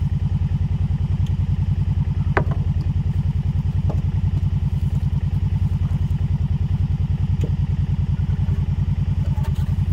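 Four-wheeler (ATV) engine running steadily with a fast, even low pulse. A sharp knock comes about two and a half seconds in, with a few lighter clicks later.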